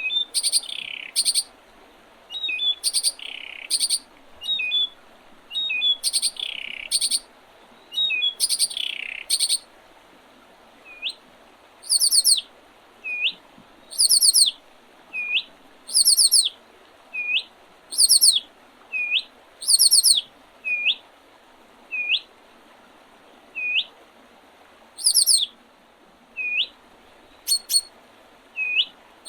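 Small songbirds singing. Short, very high rapid trills repeat every second or two, and from about a third of the way in a short swooping call repeats about once a second. A faint steady hiss runs underneath.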